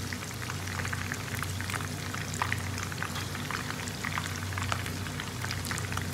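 Chicken pieces frying in shallow hot oil in a pan: a steady sizzle with many small crackling pops.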